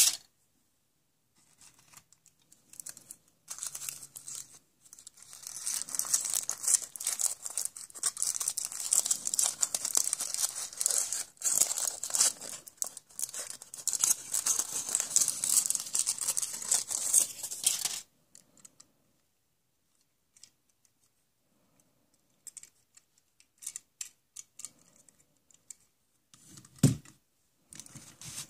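A wrapper being crinkled and torn open, a dense rapid crackling that goes on for about fourteen seconds and stops suddenly. After that come scattered small clicks of handling and a single low thump near the end.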